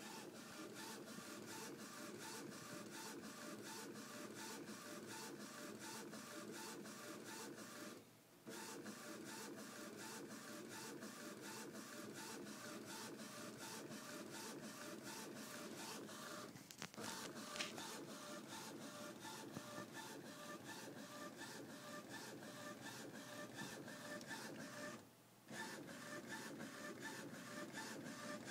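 Homemade direct-to-garment printer built from an Epson Stylus S22 inkjet, running with a rapid, even mechanical ticking. It stops briefly three times, about every eight and a half seconds.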